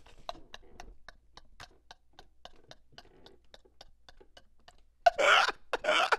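Man's breathless, wheezing laughter: a quiet run of short clicking puffs, about four a second, breaking into loud laughter about five seconds in.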